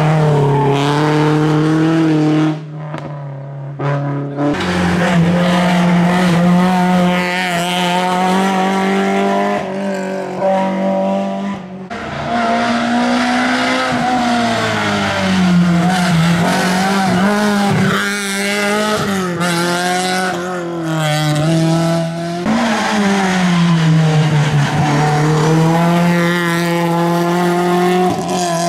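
Rally cars on a hillclimb run one after another, among them a Peugeot 206 and a Renault Clio, their engines revving hard. The pitch climbs through each gear and drops on shifts and braking for the bends, with a few abrupt breaks as one car gives way to the next.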